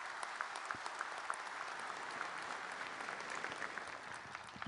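Crowd applauding: many hands clapping at once, easing off slightly near the end.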